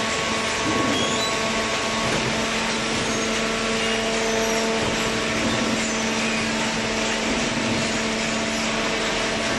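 Paper baler machine running: a steady mechanical whir with a constant hum.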